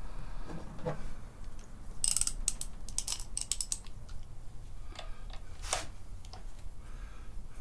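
Socket ratchet wrench clicking in quick runs, about two seconds in and again about five seconds in, with light clinks of metal tools being handled.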